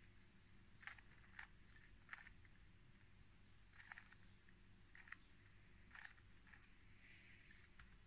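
Faint, irregular clicks of a 3x3 Rubik's cube's plastic layers being turned by hand, with a steady low hum beneath.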